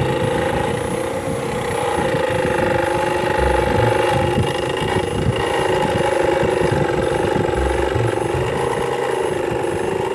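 Electric jigsaw sawing through a strip of metal plate. The motor runs with a steady whine over a fast rattle of blade strokes.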